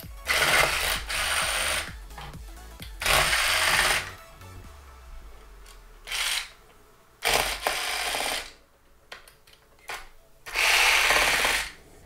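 Electric screwdriver spinning in five short runs of about half a second to a second and a half each, backing out the screws that hold a hoverboard's gyroscope board.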